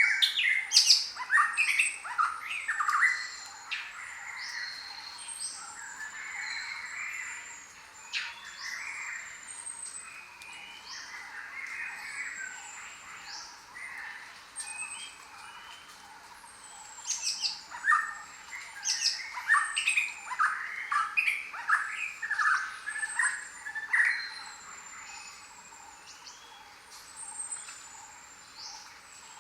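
A chorus of jungle birds calling. A thin, high, falling whistle repeats again and again, and louder squawking, chattering calls crowd in near the start and again through the middle stretch.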